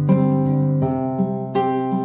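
Background music led by a plucked acoustic guitar, with new notes struck about every half second.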